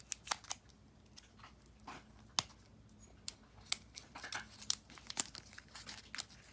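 Foil trading-card booster pack crinkling and being torn open by hand, a scatter of short, sharp crackles.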